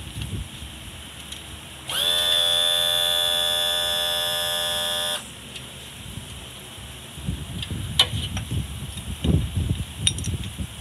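Mercury outboard's power trim and tilt motor running for about three seconds as a steady electric whine, tilting the engine up; it starts about two seconds in and stops abruptly. Later come irregular metal knocks and clicks as the transom saver bar is handled.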